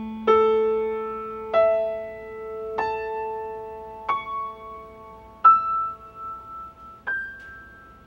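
Piano notes climbing one at a time through the harmonic series of A220: A 440, E 660, A 880, C♯ 1100, E 1320 and a G near 1540 Hz, about one every 1.3 s. The low A220 fundamental is still ringing at the start, and each note sustains under the next, so they build up an A dominant-seventh chord (A, C♯, E, G).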